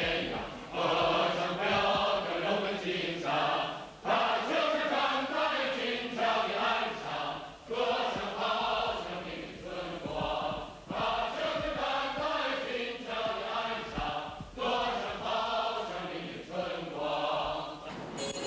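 Voices chanting in phrases of about one to three seconds, each broken off by a short pause.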